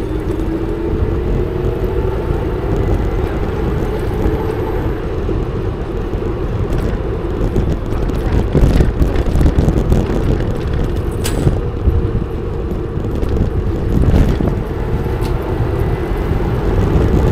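VanMoof S3 e-bike under way: wind noise on the microphone and road rumble, under a steady whine from the bike's electric hub motor that rises in pitch near the start as it gathers speed. A couple of sharp clicks come around the middle.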